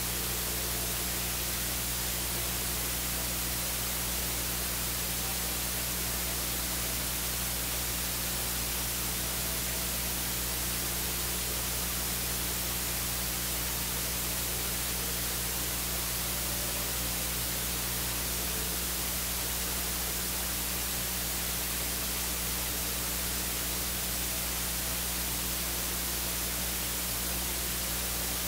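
Steady hiss with a low electrical hum underneath and nothing else: the noise floor of the recording's audio feed.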